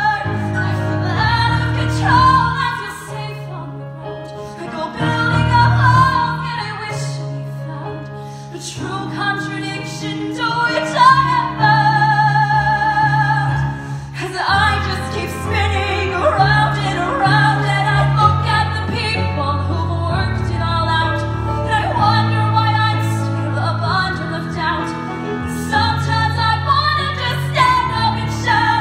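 A woman singing a musical-theatre ballad solo into a microphone over instrumental accompaniment, holding long notes with vibrato. A short lull comes about halfway through, and then the song swells fuller and louder.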